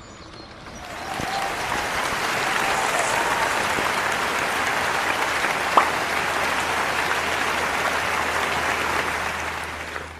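A steady, dense hiss of noise like applause, fading in over the first second and out near the end, with one sharp click about halfway through.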